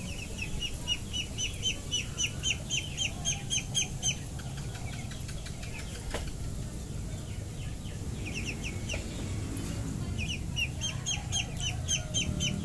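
A bird calling in rapid runs of short high-pitched notes, about four a second, for the first four seconds and again in the last few seconds, over a low steady rumble.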